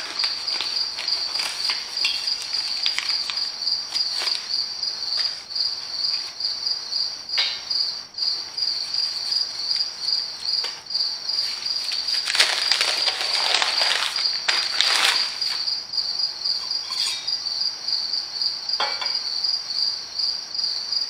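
A cricket chirping steadily in a fast, evenly pulsing high trill. Over it, cardboard and paper rustle with light knocks as a cylinder sleeve is taken from a parts box and unwrapped; the rustling is loudest about twelve to fifteen seconds in.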